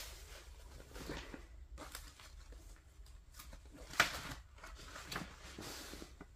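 Faint rustling of paper and craft supplies being handled, with one sharp click about four seconds in.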